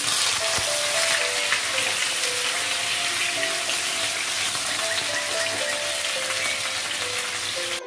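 Raw potato pieces frying in hot oil in a nonstick wok: a loud, steady sizzle as they are stirred with a silicone spatula, cutting off suddenly near the end.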